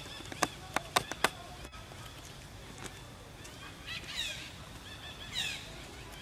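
Two short, high animal calls falling in pitch, about four seconds and five and a half seconds in. Near the start there are a few sharp clicks.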